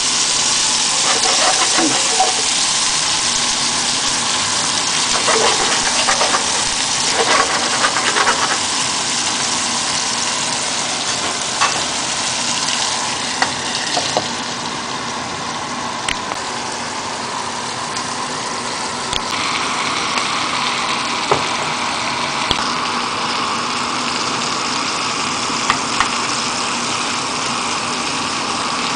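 Shrimp and chopped garlic sizzling in hot oil in a frying pan: a steady hiss, with occasional sharp clicks of a utensil or the lid against the pan.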